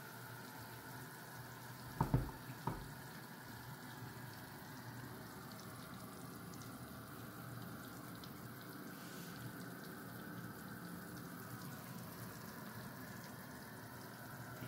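Vegetable soup bubbling steadily in a pot on high heat while thick batter is drizzled into it, with two light knocks about two seconds in.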